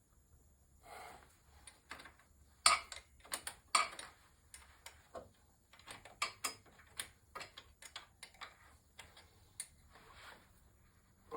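Hand tools and small metal parts clicking and knocking at an irregular pace, with a few short scraping sounds; the loudest knock comes about two and a half seconds in.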